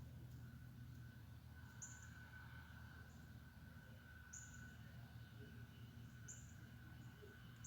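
Near silence: a steady low hum, with a faint high chirp repeating about every two seconds.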